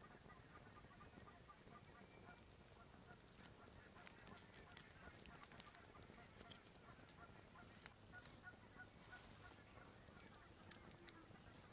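Faint, distant bird calls: a flock keeping up a steady run of short honking calls, with a few sharp clicks close by, the loudest near the end.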